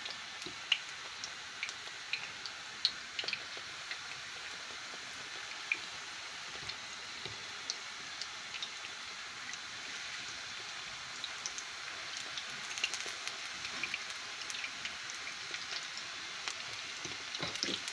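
Batter-coated sausage fritters frying in hot vegetable oil in a frying pan: a steady sizzle with scattered small pops and crackles.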